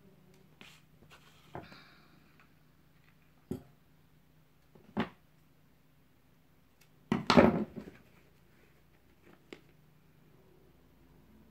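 Crafting supplies being handled and set down on a wooden work table: a few short, separate knocks, with a louder clatter and rustle about seven seconds in.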